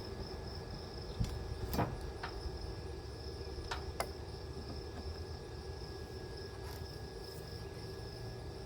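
Crickets chirping steadily, with a few sharp clicks and knocks of metal pieces being handled and set down in the first four seconds.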